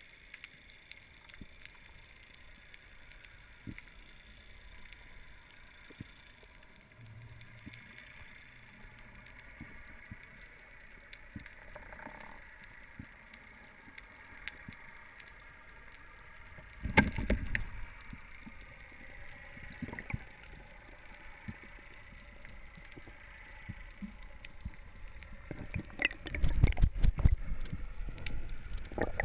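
Muffled underwater sound through a camera housing: a faint steady hiss with scattered small clicks. A single heavy thump comes a little past halfway, and near the end a run of loud thumps and rattles as the polespear strikes an African pompano and the speared fish thrashes.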